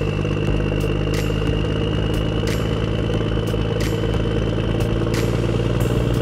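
Radio-controlled toy John Deere tractor driving and pulling a loaded low-loader trailer: a steady engine-like hum with a thin high whine that rises slightly in pitch, and scattered sharp clicks.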